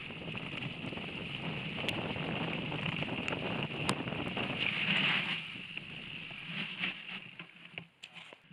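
Mountain bike riding fast down a dirt singletrack, heard from an on-board camera: a steady rush of wind on the microphone and tyre noise, with a few sharp clicks and rattles from the bike. The noise drops away near the end.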